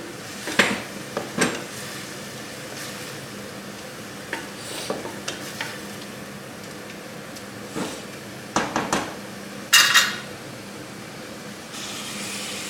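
Chicken and chopped onion sizzling as they fry in a pan, with a metal spoon stirring and scraping against the pan a few times, the loudest a ringing clank about ten seconds in. The onion is frying to brown.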